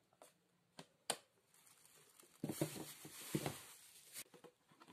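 Plastic Tupperware containers being handled: a couple of sharp clicks from a lid being opened, then about two seconds of rustling and knocking as containers are moved about.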